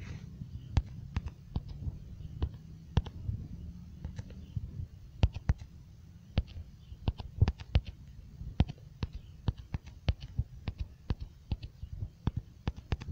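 Irregular sharp taps, a few a second, of typing on a smartphone's on-screen keyboard, over a low steady hum.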